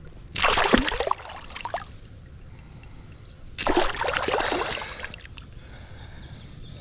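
Two bursts of water splashing, each about a second long and about three seconds apart, from a hooked spotted bass thrashing at the surface as it is reeled in.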